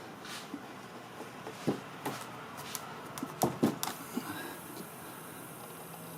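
Tyre plug kit reamer being worked in and out of a puncture in the tyre tread to clean out and enlarge the hole for the plug: scattered clicks and knocks, with a few sharper ones about three and a half seconds in.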